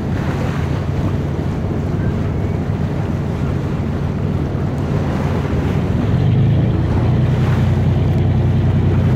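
A boat's engine running with a steady low drone, under wind buffeting the microphone and the wash of water. The drone grows a little louder about six seconds in.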